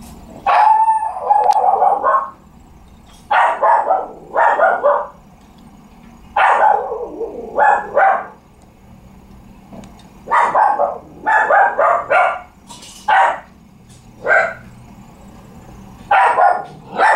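A dog barking in short runs of barks, one run every few seconds, with quiet between them.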